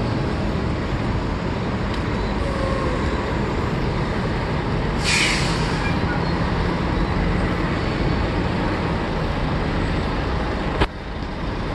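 Steady road traffic noise from a road used by container trucks, with a short hiss about five seconds in. A sharp click comes near the end, after which the sound is quieter.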